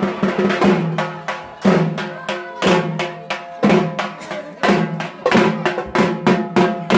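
Drums played in a steady, loud rhythm: a heavy accented stroke about once a second, with quicker strokes between.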